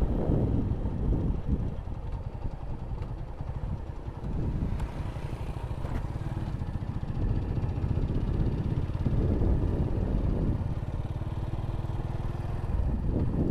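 Motorcycle being ridden, its engine running under a low wind rumble on the microphone. The sound swells and eases every few seconds.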